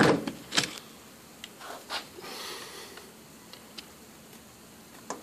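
A metal hand cutting tool set down with a sharp clack on a cluttered workbench, followed by a few light clicks of handling and a soft rustle of paper about two seconds in.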